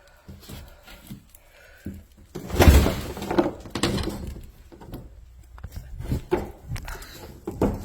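Irregular knocks, scrapes and clattering of storm debris being shoved and shifted while someone tries to push a way through into a wrecked building. The loudest clatter comes about two and a half seconds in.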